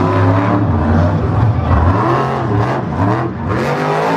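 Mad Scientist monster truck's supercharged V8 engine revving hard, its pitch rising and falling as the throttle is worked on the run up to a ramp jump.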